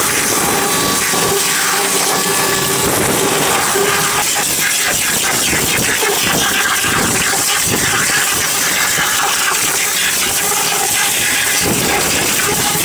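Pressure washer spraying: a steady hiss of the high-pressure water jet, with an engine running underneath.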